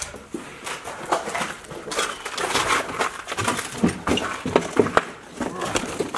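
Footsteps and rustling handling noise, with irregular knocks and thumps as people move while carrying a heavy load.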